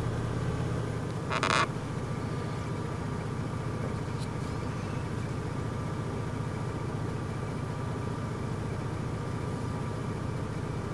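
Four-wheeler (ATV) engine idling steadily with a fast, even low pulse. A short, loud burst of noise breaks in about a second and a half in.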